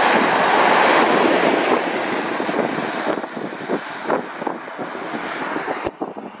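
Mercedes-Benz tipper lorry passing on a wet road: engine and tyre hiss loudest in the first second or so, then fading as it moves away, with wind buffeting the microphone. The sound changes abruptly near the end.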